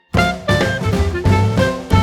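Upbeat swing-style background music with brass and a steady beat.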